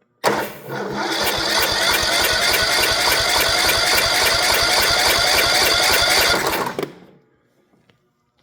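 Kohler 18 hp riding-mower engine cranking on its electric starter for about six and a half seconds, then stopping. The engine fires when the carb is primed but will not keep running, which the owner puts down to it not getting fuel.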